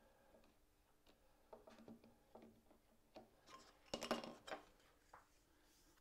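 A few faint wooden clicks and taps as thin timber strips are handled on a plywood bench, with a short cluster of louder knocks about four seconds in.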